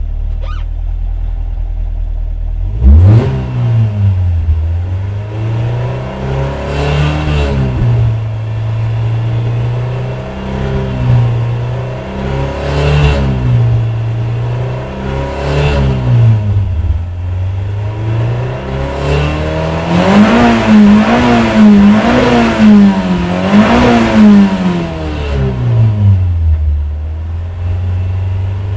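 Toyota 4A-GE 16-valve DOHC four-cylinder engine revved repeatedly from idle with the clutch pressed in, with a run of higher revs past the middle before it drops back to idle. At the top of the revs a faint high tone comes in. It is likely the odd noise that the owner hears appear around 4,000 rpm.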